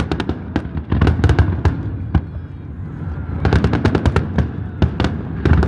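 Fireworks show: rapid clusters of sharp bangs and crackles going off in quick succession, thinning out in the middle and picking up again after about three and a half seconds.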